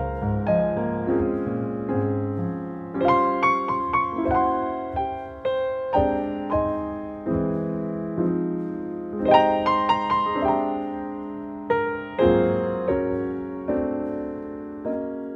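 Slow solo piano music: phrases of struck notes that ring and fade, dying away near the end.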